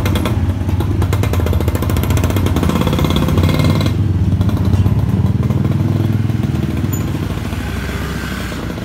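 Motorcycle engine running close by, a steady low putter that fades somewhat toward the end.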